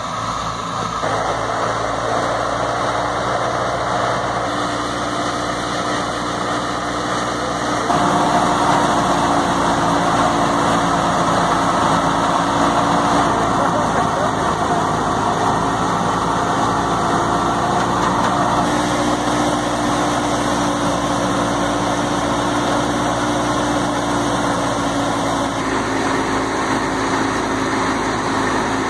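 Belarus 510 tractor running a wheat thresher, a steady unbroken machine drone with a held hum. It is louder from about eight seconds in.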